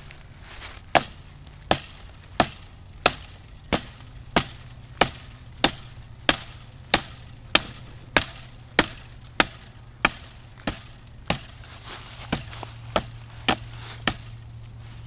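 Axe chopping into the trunk of a small tree, steady evenly paced strikes, about three every two seconds.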